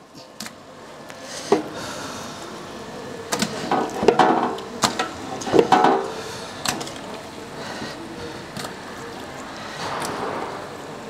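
Raw chicken pieces tipped from a steel pot into a large pot of hot oily tomato masala: a run of clattering knocks from the steel vessels and the meat dropping in during the first seven seconds or so, over a steady sizzle of the masala frying.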